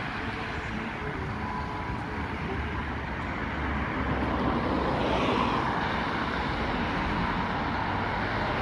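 Road traffic: cars driving past on a busy street, a steady rumble of engines and tyres that swells louder about four seconds in as a vehicle passes close.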